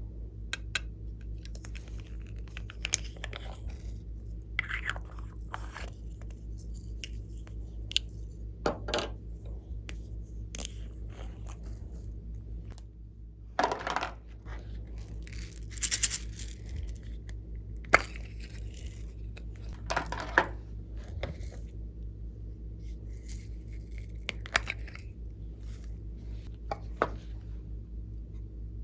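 Hands working glossy slime, with irregular clicks, pops and short squelches over a steady low hum.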